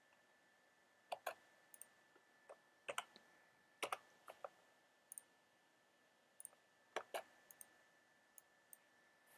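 Computer mouse clicking irregularly, single clicks and quick pairs, over a faint steady high whine.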